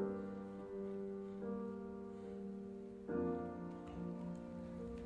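Slow, quiet piano music: held chords that change every second or two.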